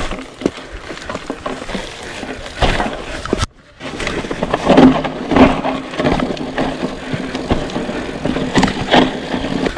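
Mountain bike, a 2021 Scott Spark 960 with a CYC Photon mid-drive conversion, rolling fast down a dry dirt singletrack: tyre roar with repeated knocks and rattles as it hits roots and bumps, and a faint steady hum underneath. The sound cuts out sharply for a moment about three and a half seconds in.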